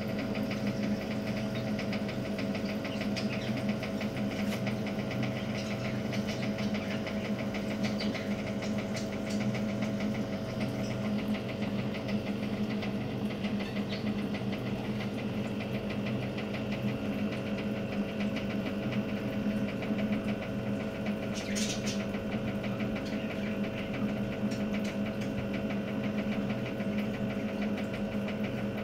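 Steady mechanical buzzing hum of a small running machine, a low drone with a fast, even rattle over it, with one brief higher hiss about two-thirds of the way through.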